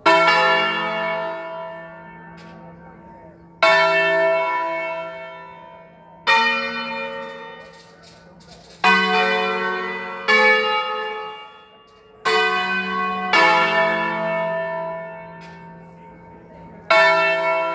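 Church tower bells ringing one stroke at a time, eight strikes in all at uneven gaps of one to four seconds. Different bells sound in turn, and each note rings on and slowly dies away before the next.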